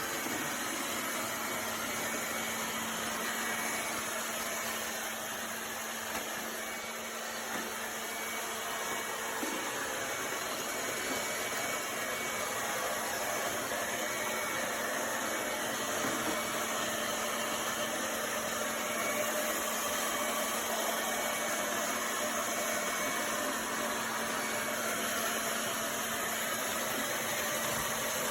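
ILIFE A12 Pro robot vacuum running: a steady whir and hiss with a faint low hum underneath, unchanging throughout.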